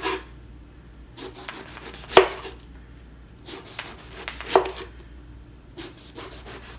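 Chef's knife sawing through a whole eggplant, several quick rasping strokes per slice, each slice ending with the blade knocking on the cutting board, about every two and a half seconds.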